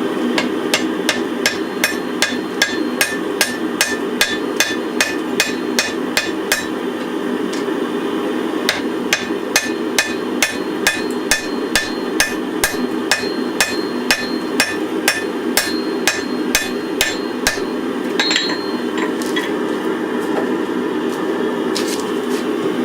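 Hand hammer striking a hot wrought iron and spring steel billet on an anvil, about two to three blows a second in two runs with a short pause between, the blows stopping about three-quarters of the way through. A steady rushing noise runs underneath.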